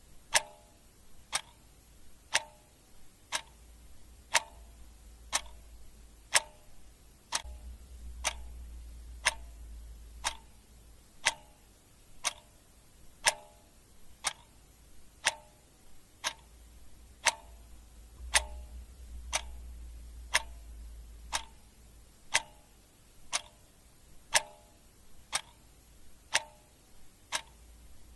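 Clock ticking steadily, about one sharp tick a second with a short ring after each. A faint low rumble swells underneath twice.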